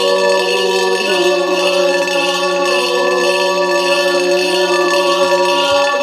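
Zäuerli, the wordless Appenzell nature yodel, sung by several voices in slow held chords that shift about a second in and again near the end. Under it runs the steady ringing drone of a coin swung around inside a ceramic bowl (Talerschwingen).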